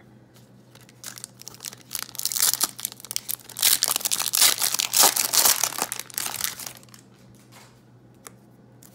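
Foil wrapper of a 2005 Upper Deck SPX football card pack crinkling and tearing as it is ripped open by hand. The crackle starts about a second in, is loudest in the middle and fades out after about seven seconds.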